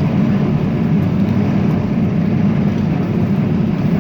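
Tractor engine running steadily under load while pulling a hay baler in the field, a constant low drone with the baler working behind it.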